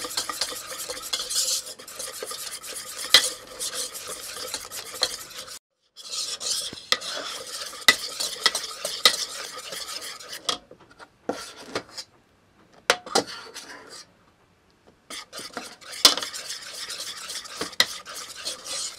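Wire whisk beating crêpe batter in a pot, a fast scraping and clicking of the wires against the pot's sides and bottom, stopping briefly twice.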